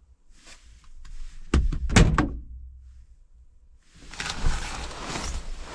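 A few sharp knocks and thuds, a second and a half to two seconds in, then, from about four seconds in, a longer stretch of rustling and handling noise with more knocks in it.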